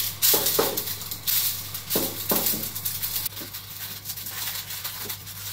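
Aluminium foil crinkling and crackling as it is pressed and folded around the base of a ceramic bowl: quick bursts for about three seconds, then softer rustles. A low steady hum runs underneath.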